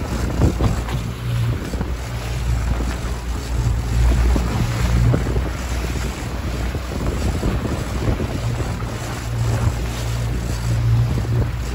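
Mercury outboard motor running steadily as the boat moves under way, its low hum under the rush of wake water, with wind buffeting the microphone.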